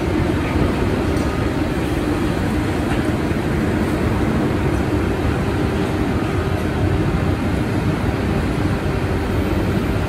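Steady low rumble of road traffic and diesel construction-machinery engines, with a constant engine hum and no distinct knocks or impacts.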